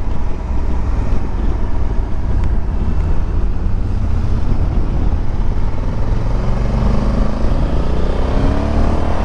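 Motorcycle engine running with wind rush on the microphone while riding along a wet lane; about seven seconds in, the engine note climbs steadily as the bike accelerates.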